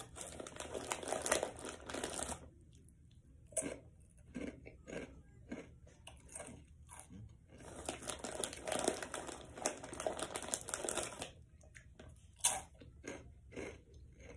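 A hand rummaging in a crinkly foil snack bag, in two long stretches of rustling, the first starting just after the beginning and the second about seven and a half seconds in, with short crunching crackles in between.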